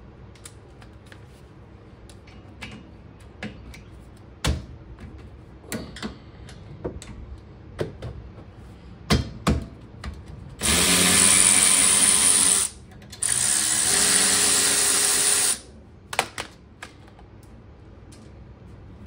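A handheld power tool fitted with a 14 mm socket runs twice, about two seconds each, loosening the rear brake caliper bolts. Before that, scattered clicks and knocks of the socket and metal parts are heard.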